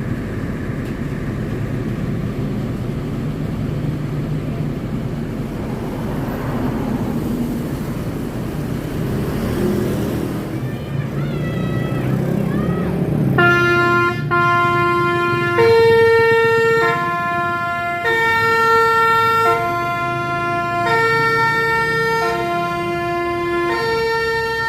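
Bus engine and road noise for the first half, then a multi-tone 'basuri' telolet horn plays a melody of held notes that change about once a second and are louder than the engine.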